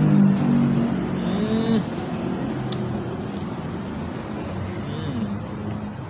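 A road vehicle's engine humming steadily, loudest for the first couple of seconds and then fading to a lower background hum.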